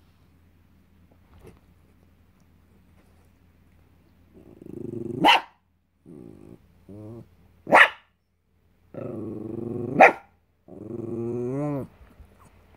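Small dog growling in short spells and breaking three times into a sharp bark, a grumpy protest at not getting its way; the last growl wavers and trails off near the end.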